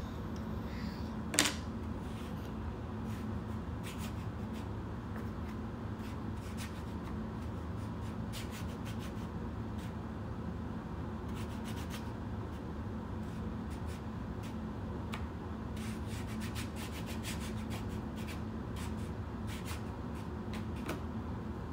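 Wooden animal puzzle pieces being handled and fitted into a wooden peg-puzzle board on a plastic table: scattered light clicks and rubbing, with one sharper knock about a second and a half in, over a steady low hum.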